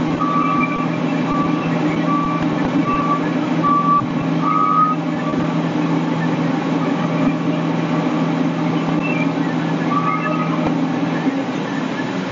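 A fire truck's engine running steadily, with short, evenly pitched warning beeps sounding about every half second for the first five seconds and again briefly around ten seconds in. The engine hum drops away near the end.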